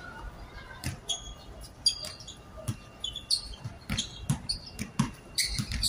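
A basketball bouncing on an outdoor hard court in irregular single thumps about once a second, coming closer together around four seconds in and again near the end, with short high chirps scattered between the bounces.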